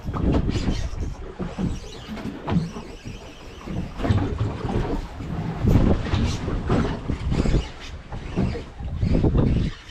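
Wind buffeting the microphone and water slapping against a small boat's hull, coming in irregular deep surges.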